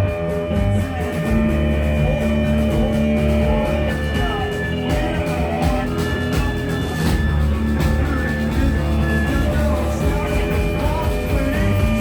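A rock band playing live, with loud electric guitars, bass and drums and some singing.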